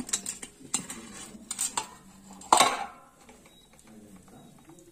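Stainless steel steamer plate and pot clinking and clattering as they are handled: several light metal knocks in the first two seconds, then one loud clang with a short ring about two and a half seconds in.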